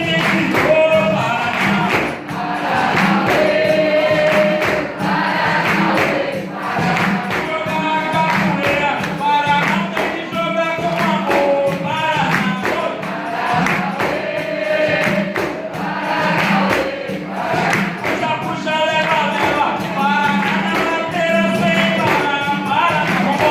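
Live capoeira roda music: several voices singing together over hand percussion that keeps a steady beat.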